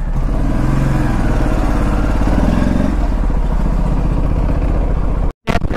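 Aprilia RS 457's parallel-twin engine running as the motorcycle pulls away, its revs rising and falling, with a very brief gap in the sound just before the end.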